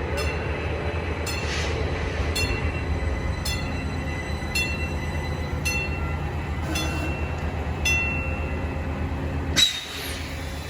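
A train running with a steady low rumble while a bell strikes about once a second, each stroke ringing on briefly. Near the end a loud sudden hit cuts the sound off, and a lower, different background follows.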